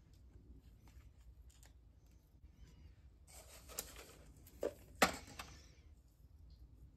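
Light rustling patter of vermiculite being sprinkled from a cup onto the potting soil of dill seedlings. Three sharp clicks of plastic nursery pots being set down and handled on a plastic tray come in the second half; the third is the loudest.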